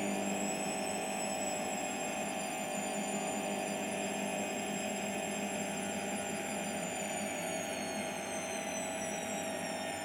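Hotpoint Aquarius WML540G washing machine spinning. The motor's high whine stops climbing right at the start as the drum reaches speed, holds steady, then sinks slightly in pitch over the last few seconds, over a constant mechanical hum.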